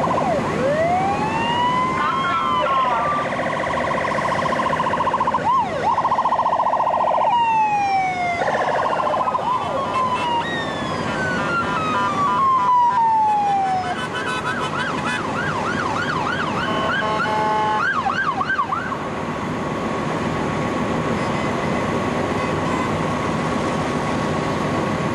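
Several emergency vehicle sirens sounding together as the procession passes. A siren winds up near the start, long falling wails follow, then a fast yelp around the middle and a steady high tone, all over a continuous background of vehicle noise.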